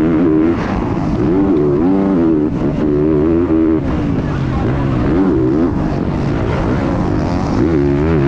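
Motocross bike engine revving hard under the rider, its pitch climbing and dropping again and again as the throttle is worked and gears are shifted.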